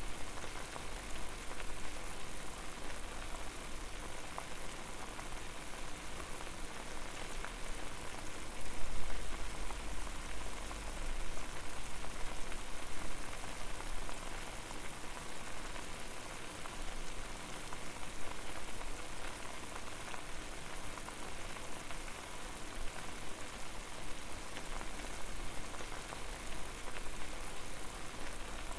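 Water boiling over a fire: a steady bubbling hiss with many small pops. A low rumble swells briefly about nine seconds in.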